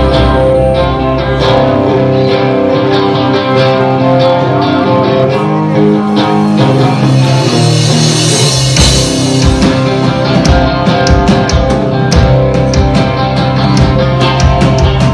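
Live rock band playing an instrumental passage, with electric guitars holding chords. The deep bass drops out for several seconds. A rising hiss builds to a peak just past halfway, then the low end and steady drum hits come back in.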